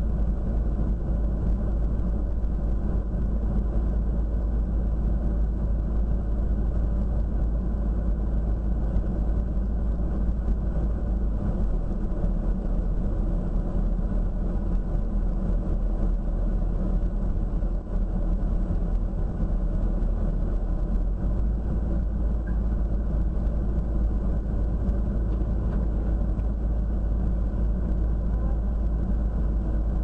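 Car engine idling steadily, heard from inside the stationary car's cabin as an even, unchanging rumble.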